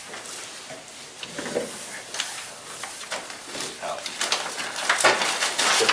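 Papers being rustled and handled on a table, with scattered soft clicks and scrapes that get busier and louder over the last second or so; a faint murmur of voices.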